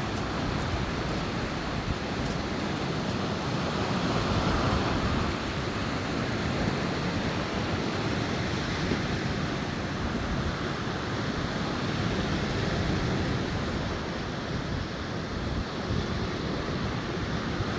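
Surf of a rough, stormy sea washing steadily onto the shore, with wind rumbling on the microphone.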